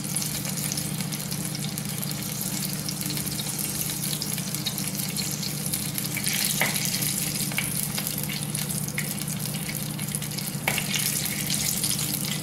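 Hot oil sizzling steadily in a clay kadai as urad dal and mustard seeds fry for a tempering. A few sharp clicks come from a spatula stirring against the pot, about halfway through and again near the end.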